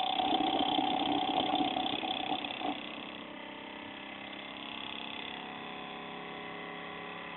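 Small 12-volt DC motor spinning a magnet flywheel, running with a steady whine and hum. The sound drops noticeably quieter about three seconds in and then stays steady.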